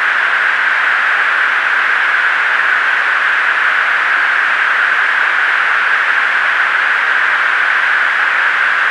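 Steady, even hiss of a military aircraft's cockpit intercom audio channel, unchanging throughout, with no voices on it.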